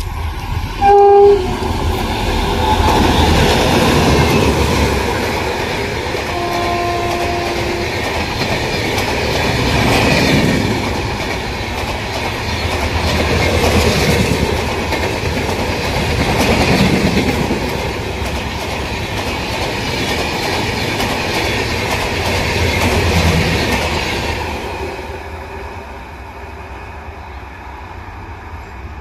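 Electric locomotive of an Indian Railways express sounding a short two-tone horn, with a fainter blast a few seconds later, then the passenger coaches running past with a rumbling rush and clatter of wheels on the rails that fades away near the end as the train recedes.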